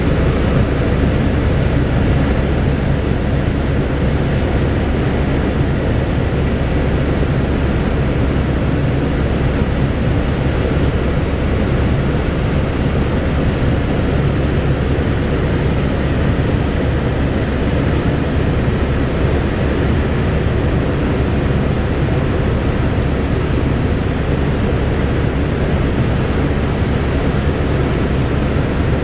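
Helicopter in flight: steady rotor and engine noise, strongest in the low range and unchanging throughout.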